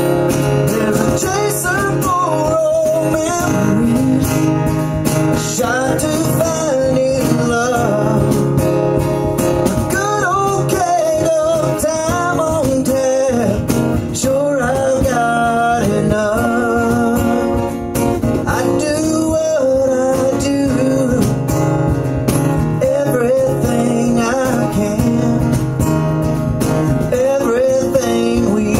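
Live acoustic country song: guitars played with a voice singing a wavering melody over them.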